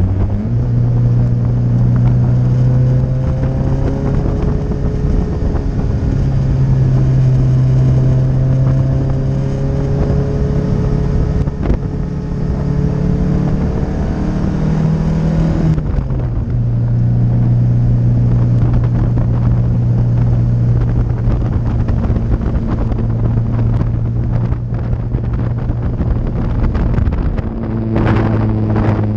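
1976 Lancia Scorpion's mid-mounted twin-cam four-cylinder engine, fitted with a hot exhaust cam, running hard at high revs on track, heard from inside the open-roofed cabin. The engine note holds steady for long stretches, falls away about halfway through, then settles back to a steady pull, with another brief drop and climb near the end.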